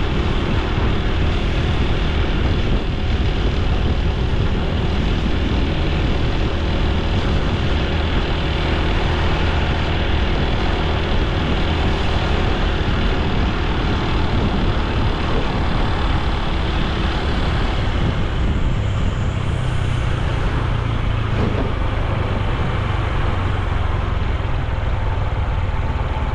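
Honda Super Cub C125's single-cylinder four-stroke engine and exhaust running at riding speed, with wind and road noise. The wind hiss eases and the engine note shifts about two-thirds of the way through.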